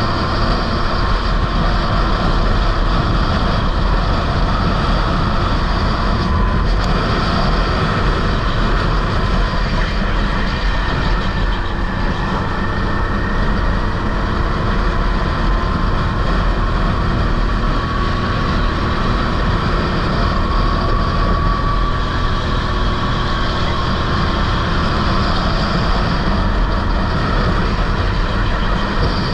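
Sodi rental kart's engine running at racing speed, heard on board over a steady rush of noise. Its pitch rises and falls a little as the lap goes on.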